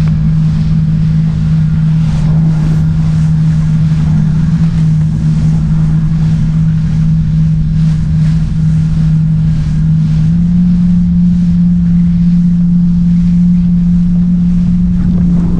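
Yamaha WaveRunner jet ski engine running steadily at part throttle while underway, a strong even drone that steps up slightly in pitch about ten seconds in. Water spray and wind on the microphone hiss underneath.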